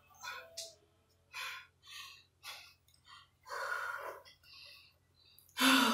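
A person out of breath from dance exercise, breathing hard in a run of short breathy gasps and exhalations, with a louder voiced sigh near the end.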